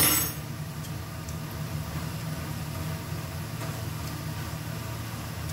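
A steady low hum with a short click at the start, under faint stirring of minced beef in an iron wok with a silicone spatula.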